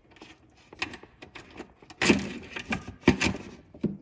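Tools and engine parts knocking and clattering while the intake manifold bolts are being fitted, with two louder clunks about two and three seconds in.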